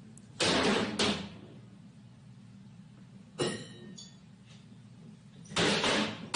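Kitchen cabinet doors being slammed in three loud bouts: a double bang about half a second in, a single bang in the middle with a brief rattling ring, and a longer bang near the end.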